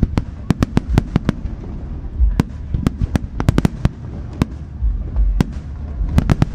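Aerial fireworks bursting: a rapid, irregular string of sharp bangs and cracks over a steady rumble, with several deeper booms mixed in.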